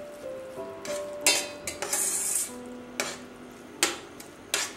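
Metal spoon scraping and knocking against a stainless steel pan while chicken in a thick sauce is stirred, in about six irregular strokes, the longest a drawn-out scrape about two seconds in.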